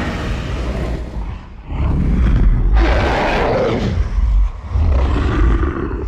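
Monster roar sound effect of the 1998 Godzilla creature: a long rough roar over a deep rumble, swelling up again after a short drop about one and a half seconds in.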